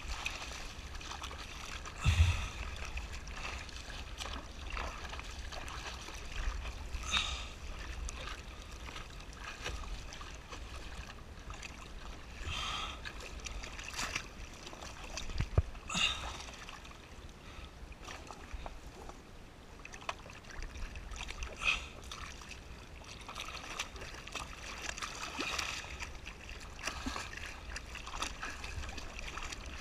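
Sea water splashing and lapping against a rescue board as it is paddled by hand, with a louder splash from an arm stroke every few seconds, the biggest about two seconds in.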